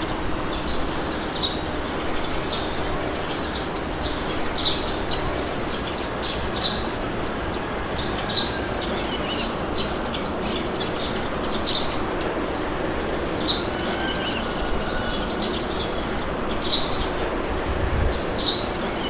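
Steady wind noise with many short, high bird chirps scattered through it.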